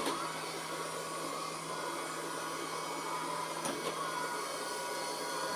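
Robot vacuum cleaner running steadily, its suction fan giving an even whirring hiss over a low motor hum, with one faint click a little after halfway.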